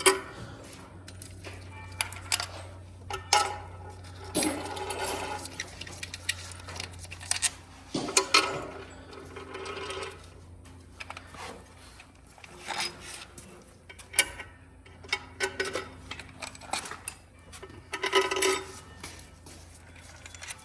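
Metal bolts clinking and rattling as they are handled and dropped into a timing cover: irregular small metallic knocks, some with a brief ring, with busier clusters about four, eight and eighteen seconds in.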